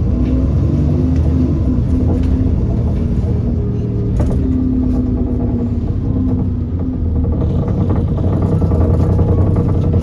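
Alexander Dennis Enviro400 double-decker bus running under way, its engine and drivetrain giving a steady low rumble with a shifting whine. A single sharp knock sounds about four seconds in.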